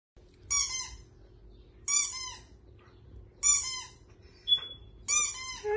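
Green rubber bone-shaped squeaky dog toy squeezed four times, about every one and a half seconds, each a short high-pitched squeak.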